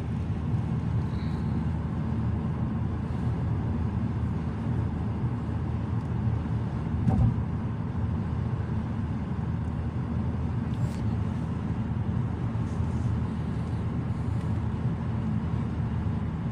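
Steady low road and engine rumble inside a moving car's cabin, with a single thump about seven seconds in.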